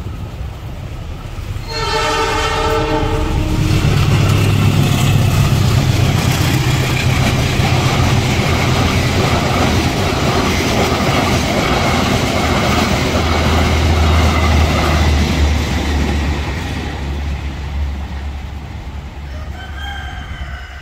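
Passenger train behind a diesel locomotive sounding one horn blast about two seconds in, then passing close by. The locomotive's low engine rumble gives way to the coaches' wheels clacking over the rail joints in a steady rhythm, and the sound fades away over the last few seconds.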